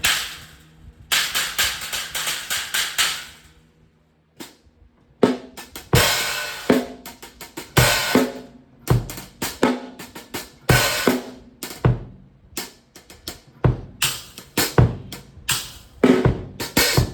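Acoustic drum kit. First comes a quick run of trashy strikes on a cymbal stack built from a broken hi-hat over a 14-inch crash set up like a China. After a short pause comes a full groove of bass drum, snare and cymbal crashes.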